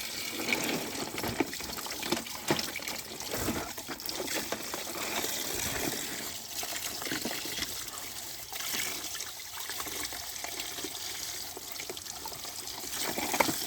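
Water running and splashing as muddy plastic toy vehicles are rinsed clean, with irregular splashes throughout.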